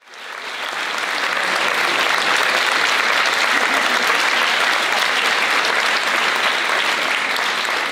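Large audience clapping in a standing ovation: dense, steady applause that fades in over the first second.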